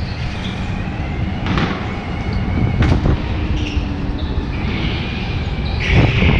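Onboard sound of an indoor rental kart at speed: a steady engine and road rumble, with a few sharp knocks and high tyre squeals as the karts slide through the corners, the squeal loudest near the end.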